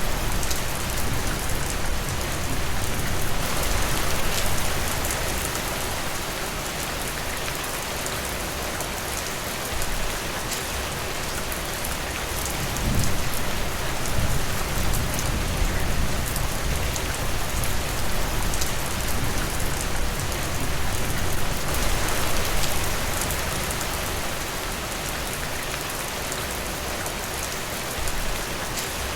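Steady rain falling: a dense hiss with individual drops ticking through it, swelling louder a few times.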